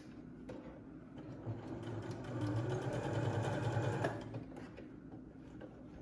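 Computerized electric sewing machine stitching through cotton fabric. It speeds up about a second and a half in, runs a quick, even burst of needle strokes, and stops abruptly at about four seconds.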